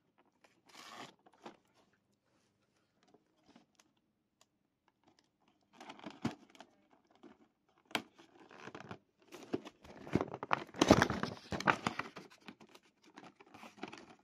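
Toy packaging being handled and torn open: a short rustle, a pause, then a run of tearing and crinkling that is busiest and loudest in the second half.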